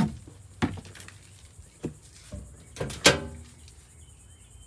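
A few sharp knocks and clicks of objects being handled, spaced irregularly, the loudest a little after three seconds in.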